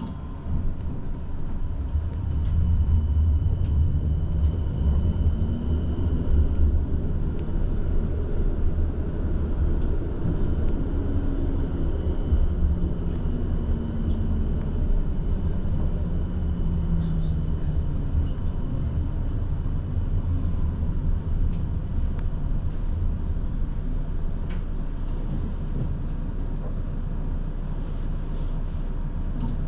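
Electric tram running, heard from inside the car: a steady low rumble of wheels on rails, growing louder about two seconds in as it gets under way, with a faint motor whine that rises in pitch a few times as it gathers speed.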